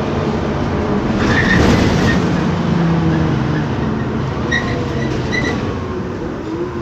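Interior drive sound of a 2009 MAN Lion's Classic city bus under way: its MAN E2876 CNG engine running with the whine of the ZF Ecomat 6HP504C automatic gearbox, swelling about a second in and easing off toward the end, heard from inside the passenger cabin.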